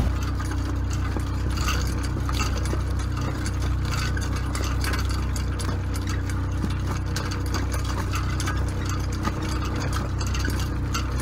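Small sailboat's outboard motor running at a steady low speed, with a light, rapid rattle over the engine note.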